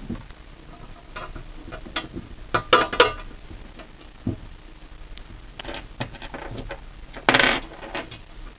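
Steel bolts and nuts clinking against the cast-iron burner and its frame as the bolts are fitted by hand: a string of sharp metallic clinks, the loudest two close together about three seconds in, and a short scraping rattle about seven seconds in.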